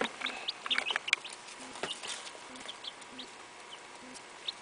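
Barred Rock and Rhode Island Red chicks peeping: a flurry of short, high cheeps in the first second or so, then single scattered peeps. A couple of soft knocks fall in the first two seconds.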